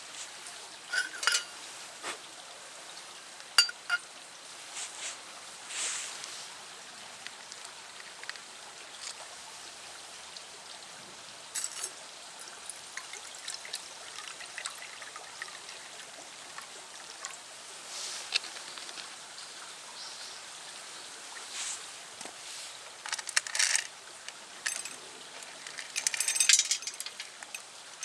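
Wood pellets clicking and clinking against a small steel fire pit: scattered sharp ticks over a steady hiss, with a quicker run of clinks near the end.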